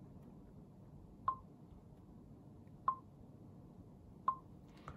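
Three short electronic beeps, each a sharp click with a brief ringing tone, about a second and a half apart, over faint room tone.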